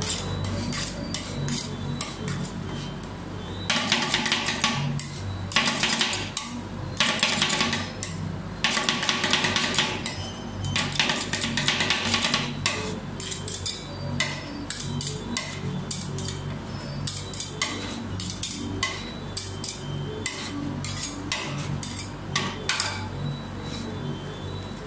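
Metal spatulas chopping and scraping ice cream on a stainless steel cold plate for rolled ice cream: quick metallic taps throughout, with several longer scrapes across the plate in the first half. Background music with steady low notes runs underneath.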